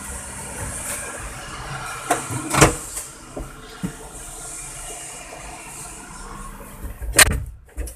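Knocks and bumps of someone climbing into a wheel loader's cab over steady background noise. The loudest thump comes near the end, after which the background noise drops sharply away.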